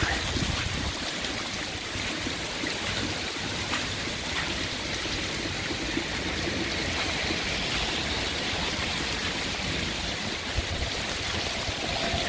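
Heavy tropical-storm rain pouring steadily onto a flooded yard, splashing into standing water and soaked grass.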